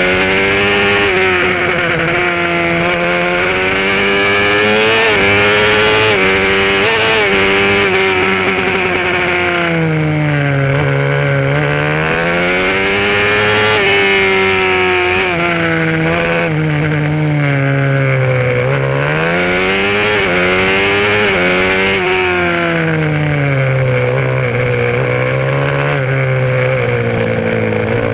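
Supermotard racing motorcycle engine at full race pace, heard from a camera mounted on the bike. Its note climbs as the bike accelerates and drops several times as it slows for corners, then rises again.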